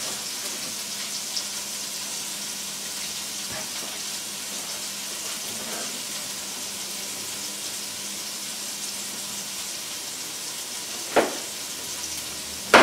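Sweet potato and kale frying in macadamia nut oil in a pan, a steady sizzle, with two sharp knocks near the end.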